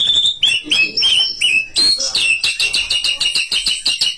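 White-rumped shama singing: a string of short gliding whistled notes, then from about halfway a fast run of repeated sharp notes.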